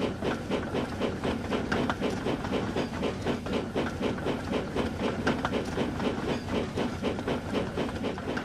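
Steam train running, chuffing in an even rhythm of about four beats a second.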